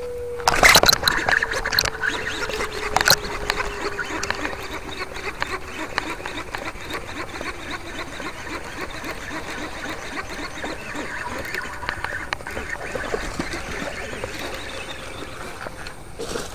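Baitcasting reel being cranked to retrieve the line, a steady rattle of small clicks, with sharp handling knocks about half a second in and again about three seconds in.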